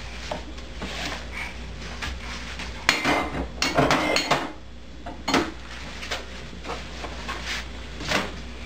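Food and drink being put into a refrigerator: scattered knocks and clinks of containers against shelves and each other, with a busier stretch of clatter about three to four and a half seconds in.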